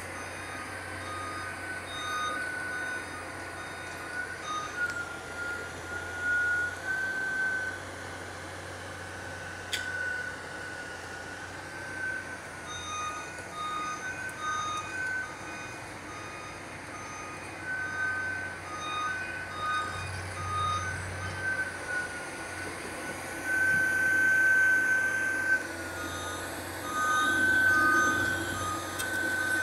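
Warning beepers on heavy construction machinery sounding in irregular runs of short and longer beeps at two pitches, over a steady low machine hum, while the drilling rig hoists its kelly bar.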